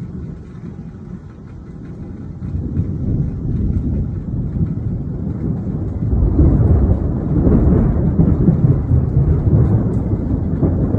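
Thunderstorm rumble: a low, continuous roar that builds about two seconds in and grows louder about six seconds in.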